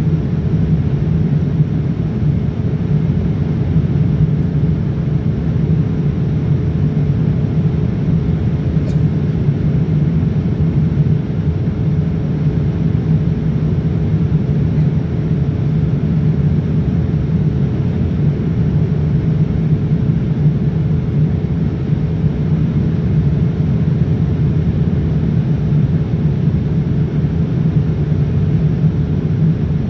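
Steady cabin noise inside a Boeing 787-9 airliner in flight: the even rumble of its engines and the airflow past the fuselage, with a faint steady hum over it.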